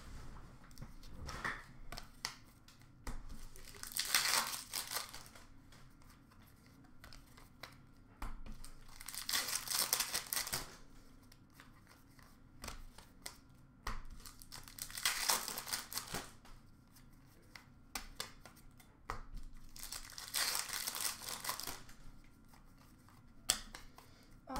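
Hockey card packs being torn open and their wrappers crinkled, in about four bursts roughly five seconds apart, with quieter rustling of cards being handled in between.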